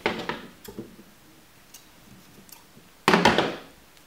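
Hands handling yarn and crochet pieces on a tabletop: a few faint clicks, then a louder short knock-like handling noise about three seconds in.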